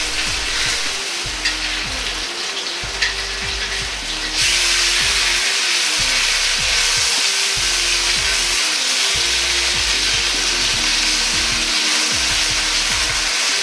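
Pork belly slices sizzling in a wok over low heat as they are turned over one by one with a spatula, with a couple of light clicks in the first few seconds. The sizzle grows clearly louder about four seconds in.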